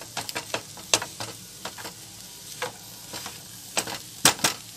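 Chopped onions with spiced gram-flour masala frying in a non-stick wok, a steady sizzle under a spatula stirring them, its edge scraping and knocking irregularly on the pan, with two loudest knocks close together near the end.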